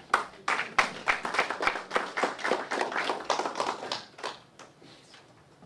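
Audience applauding with many separate hand claps, thinning out and stopping about four and a half seconds in.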